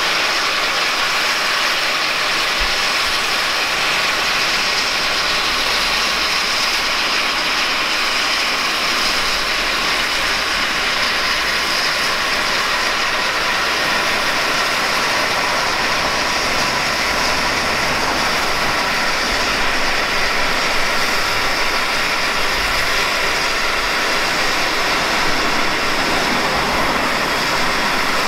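GWR 94xx-class 0-6-0 pannier tank steam locomotive with steam escaping in a loud, steady hiss. Low irregular rumbling comes in after a few seconds as the engine draws slowly forward.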